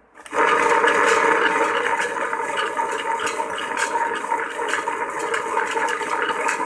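Premier Easy Grinder PG509 tabletop wet grinder switched on about a quarter second in. Its motor turns the drum and the stone roller rolls on the stone base, a steady whirring with a constant rattle.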